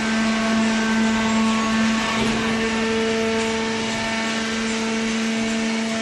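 Hydraulic baler's power unit running, the electric motor and hydraulic pump giving a steady hum with several overtones over a hiss.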